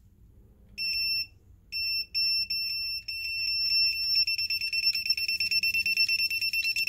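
Electronic carp bite alarm sounding a high-pitched beep: a few longer beeps, then short beeps that come faster and faster into a rapid string. This pattern is the typical sign of a fish taking line on a run.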